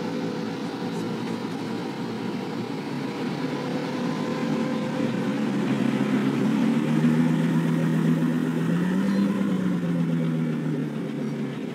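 Koenigsegg Agera's V8 running at low revs as the car rolls off slowly, growing louder in the middle, with a brief small rise and fall in revs about nine seconds in.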